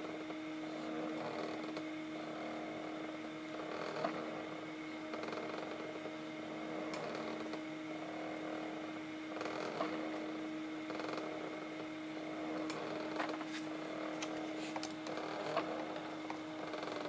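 Stepper motors driving a rose engine lathe's spindle and rosette, running with a steady whine. A soft swish recurs about once a second, with a few light ticks.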